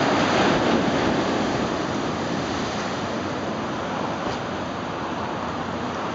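Ocean surf: a wave breaking and washing in, loudest in the first second, then easing into a steady wash.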